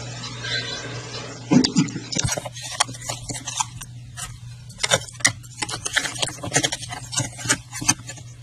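A hedgehog in its cage, with a quick, irregular run of sharp clicks and crackles from about two seconds in, over a steady low hum.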